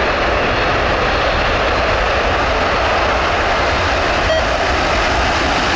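Blue Angels F/A-18 Super Hornet jet engines at high power during the formation takeoff and climb-out, a loud, steady jet noise that holds level throughout.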